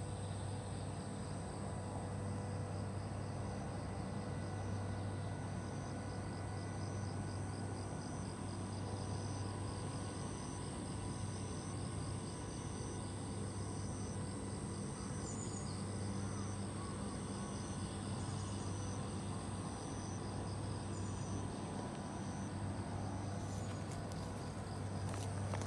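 Insects chirping steadily: a continuous high buzz with a regular pulsing trill just below it, over a steady low hum. A few light clicks near the end.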